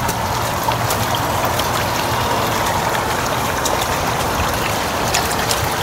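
Water trickling and splashing steadily from a garden fountain.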